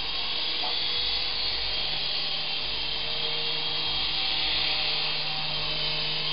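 Syma S108G micro RC helicopter, a Bell AH-1 Cobra model, in flight: its small electric rotor motors give a steady high whir.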